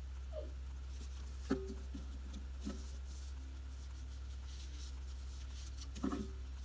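Paper sticker sheets handled and set down on a tabletop: light paper rustles and a few soft taps, about a second and a half in, near three seconds and again near the end, over a steady low hum.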